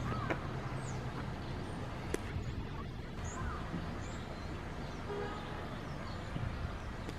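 Steady low hum of a vehicle running, with birds chirping over it in short high falling notes.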